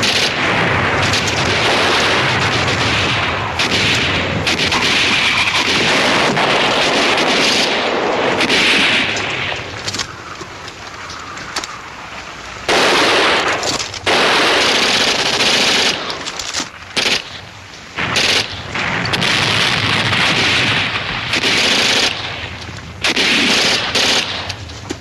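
Sustained battle gunfire, mostly rapid machine-gun bursts. It runs unbroken at first, then eases about ten seconds in and comes back as separate bursts with short pauses between them.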